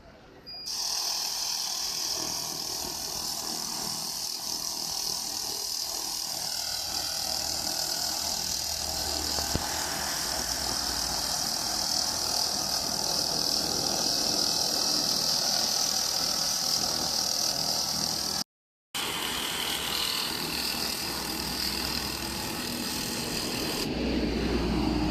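A 2000 W continuous laser cleaning machine at work stripping paint from asphalt: a steady, loud hiss, strongest high up, over a low machine hum. The sound cuts out for about half a second roughly 18 seconds in, then carries on, and the low hum grows stronger near the end.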